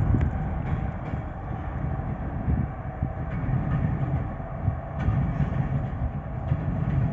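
Pair of coupled yellow SNCF diesel locomotives running light past, a steady low engine rumble, with a sharp click about five seconds in.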